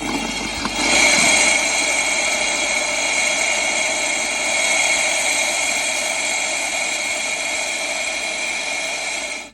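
Compressed air hissing loudly and steadily as it is blown through a camper's water lines to clear them of water before winter; it builds about a second in and cuts off suddenly near the end.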